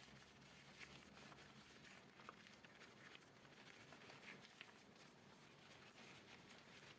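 A cloth wiping and rubbing over a hard surface, a soft continuous rubbing with a few small light ticks.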